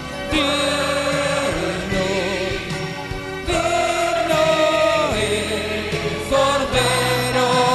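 A choir sings a Spanish Christian worship song over instrumental accompaniment, with long held notes and vibrato, taken straight from the church's mixing desk.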